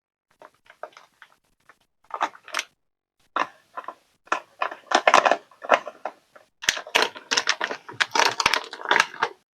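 Packaging being handled and opened: irregular crackling and rustling, sparse at first, then busy from about three seconds in.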